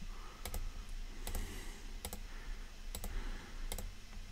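Computer mouse clicking about five times, mostly in quick pairs, over a low steady hum.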